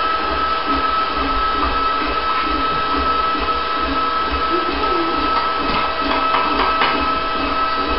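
Electric stand mixer running steadily, beating eggs and sugar for a magdalena batter, with a constant motor whine. A few light clicks come near the end.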